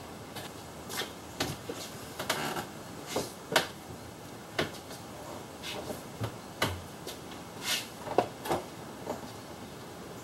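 Metal hand tools clinking and clanking as they are handled and set down, in irregular sharp knocks about once or twice a second, the loudest about three and a half and eight seconds in.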